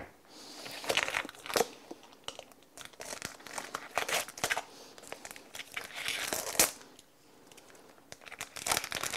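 Plastic wrapper of a vacuum-sealed kielbasa package crinkling and tearing as it is peeled open by hand, in irregular bursts with a short pause about seven seconds in.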